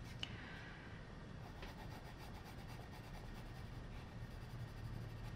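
Blue coloured pencil rubbing faintly on sketchbook paper in shading strokes, over a steady low hum.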